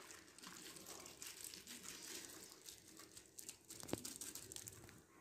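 Faint wet squishing and plastic crinkling from a gloved hand working marinade into raw chicken pieces, with a sharper click about four seconds in.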